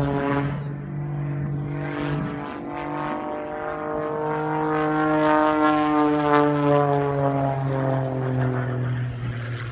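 A small aerobatic plane's engine drones as the plane dives overhead. The pitch swells slightly and then falls away near the end as the plane passes.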